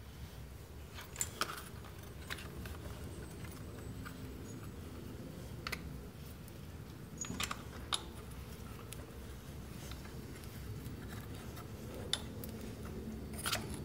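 Scattered light metallic clicks and clinks of a 5 mm Allen key against the bolts and bracket of a motorcycle's battery side cover as the bolts are turned back in, over a steady low hum.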